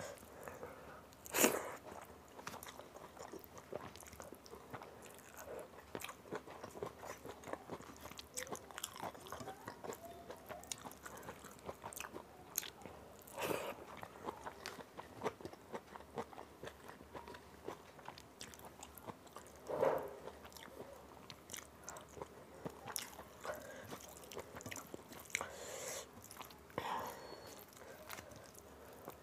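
Eating by hand: fingers mixing and squishing rice and dal on a steel plate, and close-up chewing. Small clicky mouth and food noises run throughout, with a few louder bursts, the loudest about a second and a half in.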